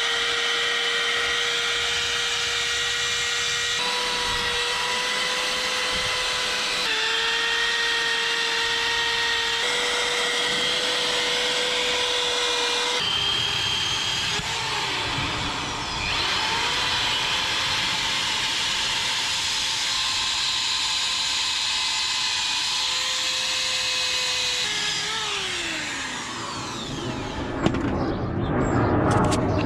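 Electric drill with a wire brush scrubbing rust off a steel wheel rim: a steady motor whine under a scratchy hiss of bristles on metal. The drill slows and picks up again about halfway through, and winds down near the end.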